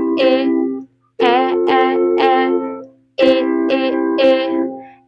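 Children's vowel song: a voice sings the vowel 'é' in quick groups of three short notes, with brief breaks between the groups, over a light instrumental accompaniment.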